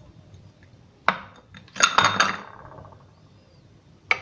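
Metal knife tip clinking and scraping against a ceramic bowl as set, hard halwa is pried loose from its sides. There is a sharp clink about a second in, a louder cluster of clinks with a short ring near two seconds, and another clink near the end.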